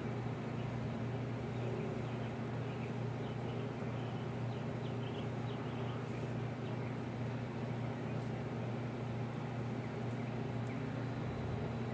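A steady low hum, like a machine running nearby, that keeps an even level, with a few faint short chirps over it in the first few seconds.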